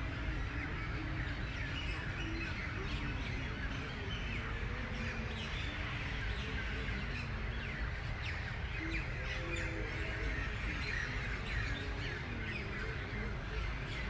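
A dense chorus of many birds chirping and calling at once in park trees, with lots of short overlapping calls and some lower, harsher calls among them, over a steady low rumble.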